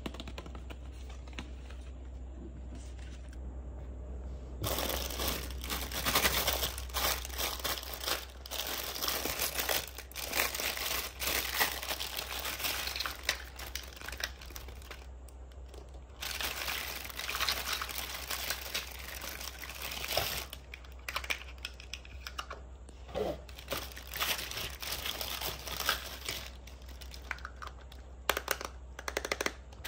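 Clear plastic bag holding small plastic toy kitchen pieces, crinkling as it is handled. The first few seconds hold only light taps. The crinkling starts about five seconds in, pauses briefly around the middle, then thins to scattered crinkles and light clicks of small plastic pieces near the end.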